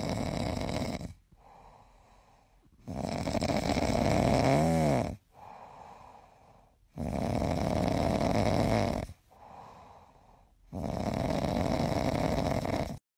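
Dog snoring: four loud snores about four seconds apart, with softer breaths between, one ending in a brief wavering whistle.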